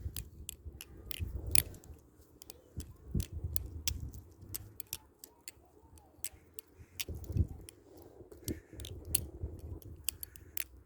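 Balisong (butterfly knife) being flipped: irregular sharp clicks and clacks as the handles swing open and shut against each other.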